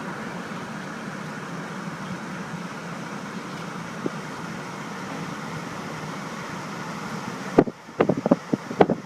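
A steady droning noise, then, from about seven and a half seconds in, gusting wind buffeting the microphone in loud, irregular blasts.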